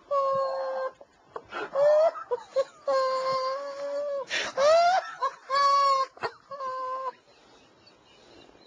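A man's stifled, uncontrollable laughter through a hand over his mouth: a string of about six long, high-pitched squealing notes, each held for half a second to a second, dying down to quieter breathing over the last second or so.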